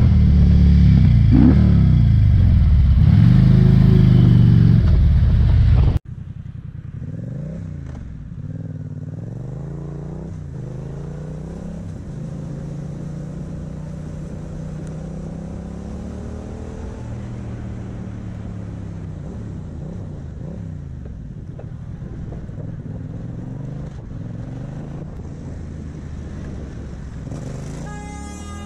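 Motorcycle engine and riding noise heard from the rider's camera: loud for about the first six seconds, then after a sudden cut quieter. In the quieter part the engine pitch rises in steps as the bike accelerates through the gears, then mostly holds steady while cruising.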